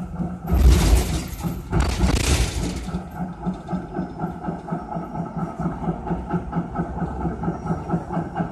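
A 1980 Melbourne tram running on its rails. Two loud rushing bursts come in the first three seconds, then a steady rhythmic rattle of the wheels and running gear, about three beats a second.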